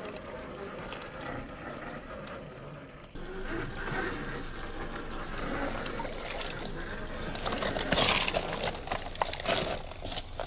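Yikong YK4083 1/8 scale Ford Bronco RC crawler working over rock: its small electric drivetrain running, with tyres scraping and crunching, loudest in a burst of crackling scrapes about eight seconds in.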